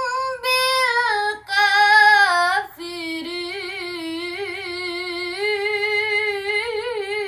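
A young girl chanting Quran recitation (tilawah) unaccompanied. She sings a few short melismatic phrases, then holds one long ornamented note, wavering up and down, from about three seconds in.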